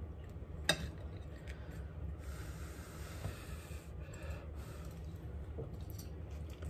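Fork cutting into a crisp baked puff-pastry crust on a ceramic plate: one sharp click about a second in, then faint scraping, over a steady low hum.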